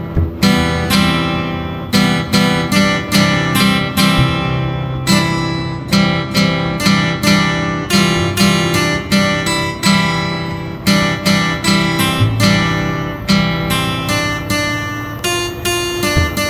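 Background music: an acoustic guitar strummed in a steady rhythm, about two to three strums a second.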